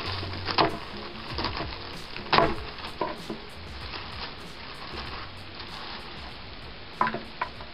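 Plastic packaging crinkling and rustling in the hands as it is unwrapped, with irregular crackles and one sharper crackle about two and a half seconds in.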